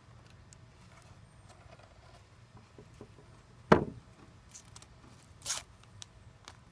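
A sharp knock a little past halfway, then brief scratchy rips of blue painter's tape being picked at and pulled from the edge of a wooden cabinet-door panel.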